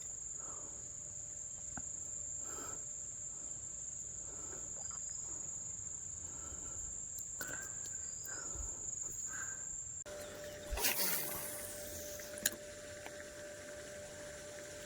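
Insects trilling in one steady high-pitched drone that cuts off abruptly about two-thirds of the way through, after which a brief rushing noise and a single sharp click are heard.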